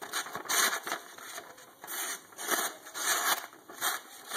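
Sharp knife blade slicing through a newsprint store flyer, with a papery hiss and crackle at each cut and rustle from the sheet, about two strokes a second. It is a cut test of the blade's edge sharpness.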